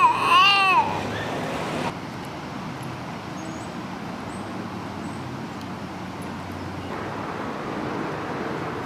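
A baby's cry that trails off about a second in, then a steady outdoor background hum of distant road traffic.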